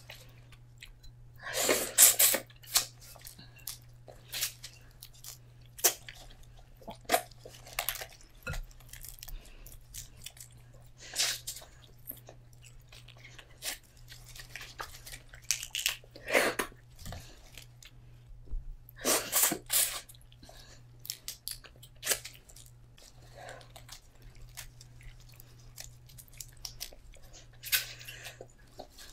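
A person eating a seafood boil close to the microphone: irregular chewing and crunching with small clicks, and a few louder spells of noise every few seconds, over a steady low hum.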